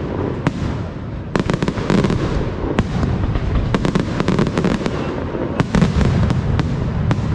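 Aerial fireworks display: runs of sharp shell bursts and crackling bangs in quick succession over a continuous low rumble.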